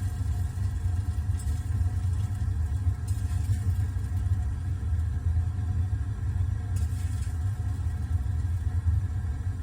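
Gas water heater burner running with a steady low rumble, with faint, brief sizzles every couple of seconds. The owner suspects the sizzling is moisture burning off in the orange flame.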